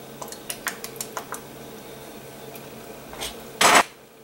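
A quick run of small, hard clicks in the first second and a half, then a short, loud rustle near the end, from ingredient containers being handled at the stove.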